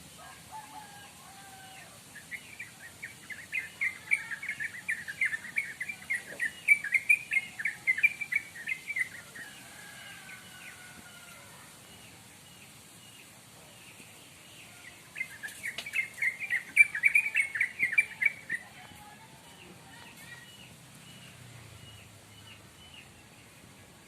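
Birds chirping: a long bout of rapid, loud chirps starting about two seconds in, a second shorter bout around fifteen seconds in, and fainter scattered calls in between.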